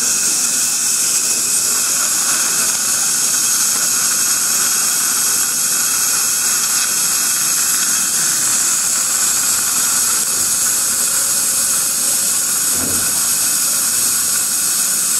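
Steady, unbroken hiss of dental equipment running during laser gum surgery.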